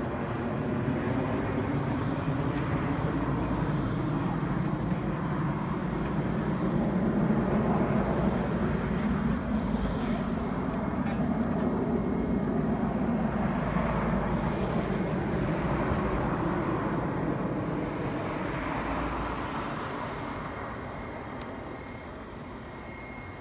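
Boeing E-3A Sentry's four TF33 turbofan engines running as the aircraft moves along the airfield at a distance: a steady jet rush with slowly shifting tone, fading away over the last few seconds, when a faint steady high whine comes in.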